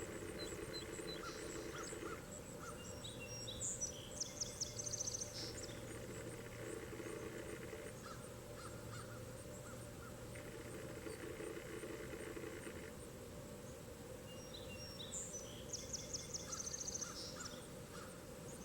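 A songbird singing a short, rapid phrase of high notes twice, about eleven seconds apart, over a steady outdoor background hiss.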